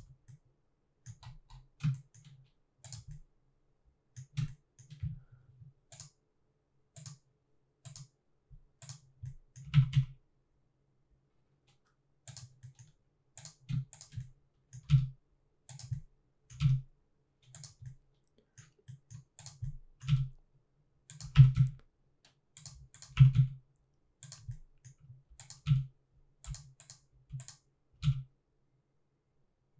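Computer keyboard keystrokes and mouse clicks, irregular and scattered, with short pauses between bursts. A few taps are louder than the rest.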